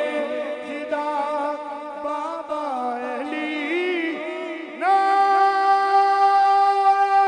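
Man singing a naat: a drawn-out melismatic phrase with winding pitch, then about five seconds in a louder, long held note.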